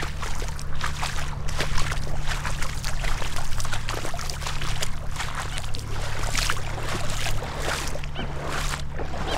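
Gumboots wading through shallow floodwater, splashing and sloshing in a quick, irregular run of strokes, over a steady low rumble.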